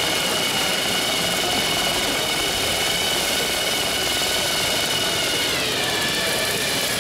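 Steady high whine of a LEGO Technic tracked vehicle's 48 LEGO electric motors and plastic gearing driving its tracks; the whine drops in pitch about five and a half seconds in.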